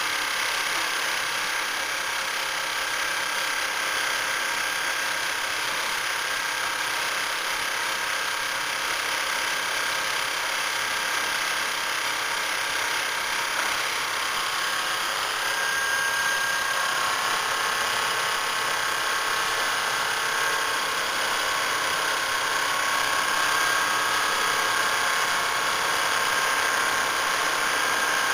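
Double-needle computerised quilting machine with a Pfaff sewing head stitching steadily: a continuous mechanical clatter and whir with a thin high whine that grows a little stronger about halfway through.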